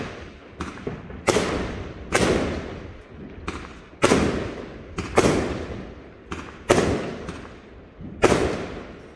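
Aerial fireworks bursting in quick succession: about ten sharp bangs, roughly one a second, each trailing off in a long echo.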